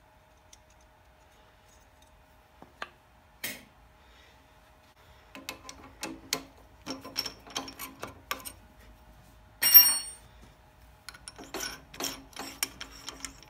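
Metal clicks and rattles of a drill press chuck being loosened and tightened while the drill bit is changed, in two clusters, with one bright ringing metallic clink a little past the middle.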